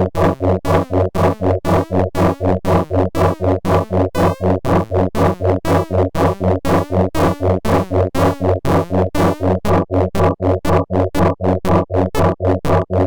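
Synthesizer patch built in Pure Data playing a rapid pulsing pattern of short notes, about four or five a second, over a steady low bass tone.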